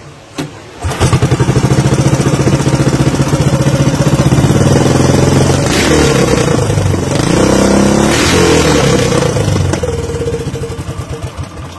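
A racing boat's engine starts about a second in and runs hard with a rapid firing beat. Its pitch dips and climbs again midway, then it dies down near the end.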